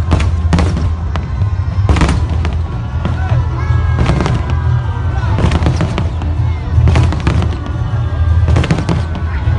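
Aerial fireworks shells bursting in quick succession: a sharp bang every second or so over a continuous low rumble from the display.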